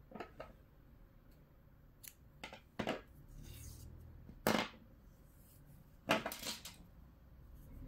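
A few short snips and clicks of scissors cutting yarn, and small tools being handled and set down on a table, with quiet between them. The loudest comes about halfway through and another cluster follows about six seconds in.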